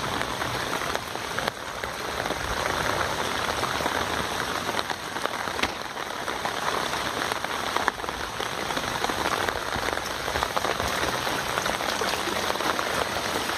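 Steady rain falling on floodwater and wet pavement: an even hiss of drops striking standing and running water.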